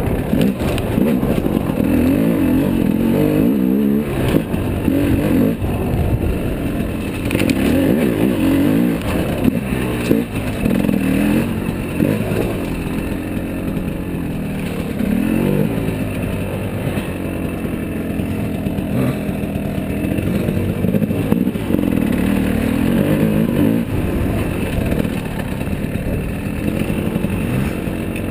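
Dirt bike engine running at low speed, its revs rising and falling over and over as the bike picks its way over rock, with occasional knocks from the rough ground.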